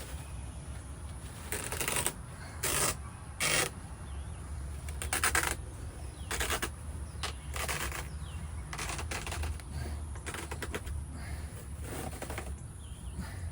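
Hand-tool work on a car's interior: about nine short rattling, clicking bursts at irregular intervals, over a low steady hum.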